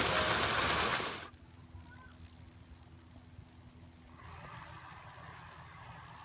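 A loud rush of noise that cuts off suddenly about a second in, followed by a steady, high-pitched insect trill that runs on without a break.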